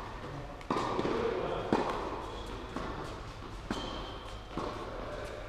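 Tennis ball struck by rackets and bouncing on an indoor court during a rally: sharp pops about once a second, the loudest a little under two seconds in, each echoing through the large hall.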